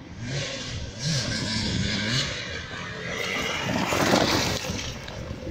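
Enduro motorcycle engine revving as the bike comes up and passes close by, loudest about four seconds in. The engine pitch rises and falls as the throttle is worked.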